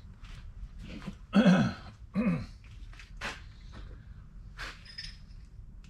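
Two short vocal sounds, each falling in pitch, about a second and a half in and again just under a second later, with a few light clicks of parts being handled around them.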